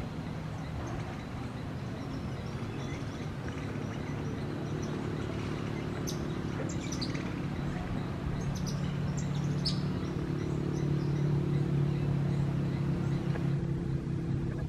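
A steady low motor hum of several even tones, which grows a little louder after about ten seconds. Scattered short, high-pitched chirps sound over it between about six and ten seconds in.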